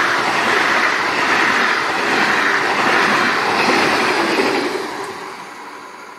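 SJ X2000 high-speed electric train passing close by at speed: a loud, steady rush of air and wheels on rail, fading over the last second or so as the train pulls away.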